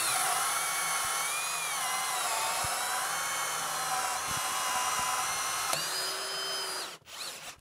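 Kobalt brushless hammer drill on speed 2 driving a 3-inch hole saw into wood: a steady motor whine with the teeth rasping through the timber. The pitch sags briefly under load, shifts again about six seconds in, and the drill stops about seven seconds in.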